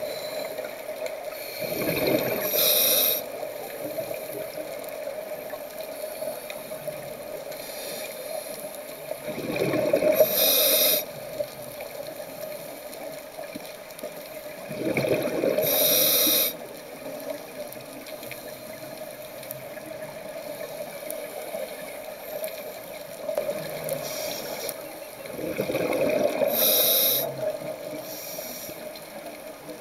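Scuba diver breathing through a regulator underwater: four breaths about eight seconds apart, each a burst of bubbling with a sharp hiss, over a steady faint hum.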